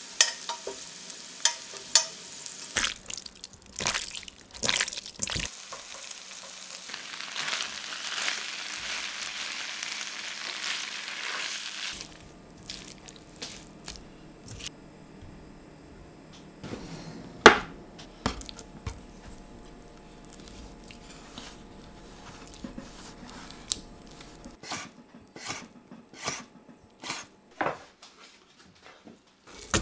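Halved new potatoes frying in oil in a frying pan, sizzling steadily, with clicks of metal tongs turning them. Less than halfway through the sizzle drops away, leaving quieter clinks and scrapes of a utensil in the pan, one sharp clank near the middle and a run of light taps near the end.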